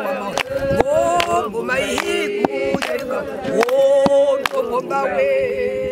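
A group of women singing together unaccompanied, several voices holding and bending long notes at once, with sharp hand claps roughly every half second.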